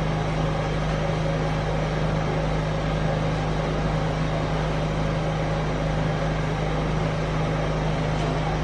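A steady low mechanical hum with a hiss over it, unchanging throughout.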